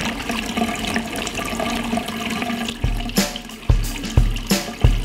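Water running steadily into a darkroom sink; about three seconds in, music with a heavy drum beat of about two thumps a second comes in over it.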